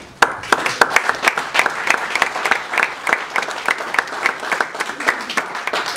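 A room of people applauding, many hands clapping together.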